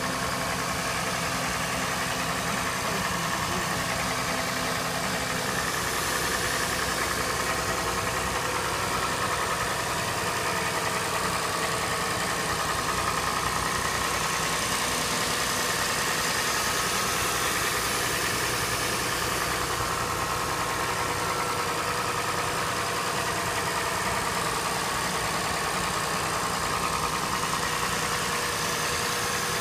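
2007 Acura MDX V6 idling steadily on a cold morning start, with a knock from the cold engine.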